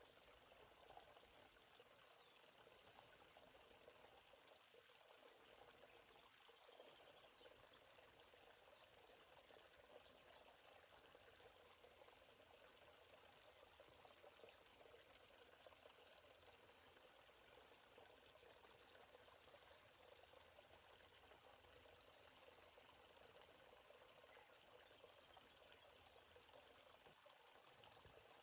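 A steady, high-pitched chorus of insects shrilling without a break. Beneath it runs a faint, even murmur of a forest stream.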